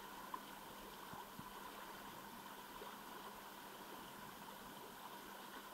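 Faint, steady rush of river current flowing past. A single brief click sounds about a third of a second in.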